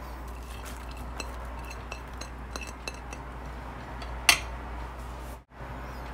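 Light clinks and taps of a ceramic plate and a wire whisk against a stainless steel mixing bowl as chopped onion is tipped in, with one sharper, louder clink about four seconds in. A steady low hum runs underneath.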